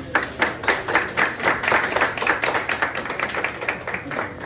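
A small crowd applauding by hand. Dense clapping starts at once, is thickest in the first couple of seconds and thins out near the end.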